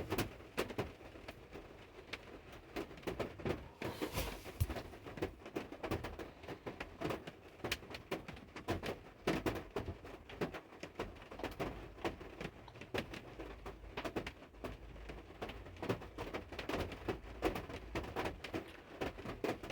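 Irregular clicks and knocks over a faint steady low hum, from the car being set up and raised on a vehicle hoist.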